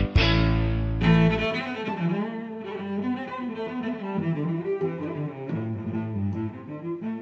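Background music: a loud intro jingle with heavy low notes ends about a second in, and a quieter, slower piece takes over.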